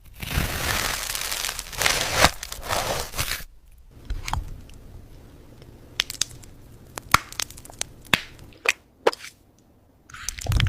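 Hard candy crackling and crunching close to the microphone: a dense crackle for the first three seconds or so, then a run of sharp separate pops and cracks, with another burst of crunching near the end.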